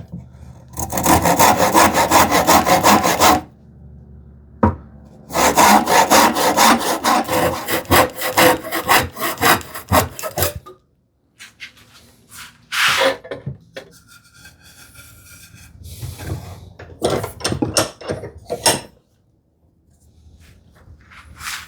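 Hand saw rough-cutting a wooden board, in two runs of quick, even back-and-forth strokes, the second longer. A few knocks and scrapes of wood being handled follow.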